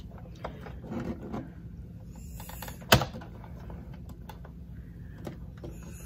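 Sizzix Big Shot die-cutting machine being hand-cranked, the plates and cutting die rolling through its rollers with faint clicking and a sharp snap about three seconds in as the plates pass over the die.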